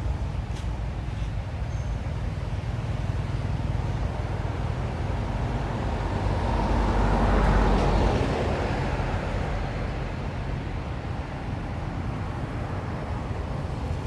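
Steady low rumble of road traffic, with one vehicle passing by about halfway through, growing louder and then fading away.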